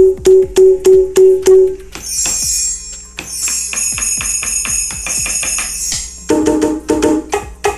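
Sampled drum sounds from an AMW ED3 electronic drum kit played through a loudspeaker: about seven quick strikes of a pitched drum, then a tambourine (pandeiro) sample jingling under rapid strikes for about four seconds, then a run of pitched percussion hits near the end.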